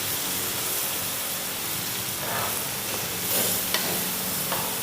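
Long beans and egg frying in oil in a wok with a steady sizzle, and a few short knocks of a spatula against the pan in the second half.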